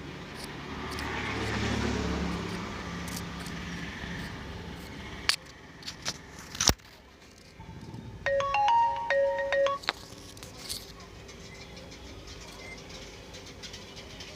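A short electronic chime melody of several quick bell-like notes, lasting about a second and a half, starting about eight seconds in. Before it, a low rumbling swell in the first few seconds and three sharp clicks.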